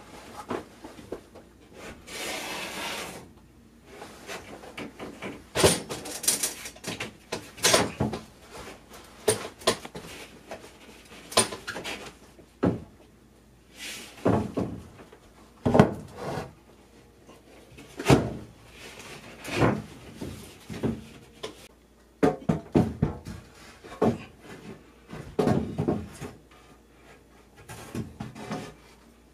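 A sheet of 5/8" drywall scraping and bumping against the ceiling framing and the sheet already hung as it is lifted overhead and pushed into position: irregular knocks and thumps with short scrapes, including a longer scrape about two seconds in.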